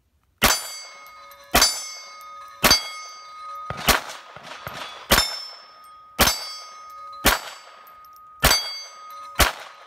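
Nine shots from a Smith & Wesson SW22 Victory .22 LR pistol, about one a second, each followed by the ringing of a steel plate target being hit. All nine fire and cycle without a malfunction, the trigger now resetting.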